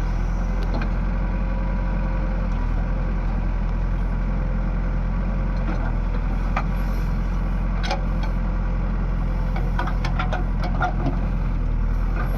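Diesel engine of a JCB machine running steadily, with a few scattered knocks and clicks, more of them near the end.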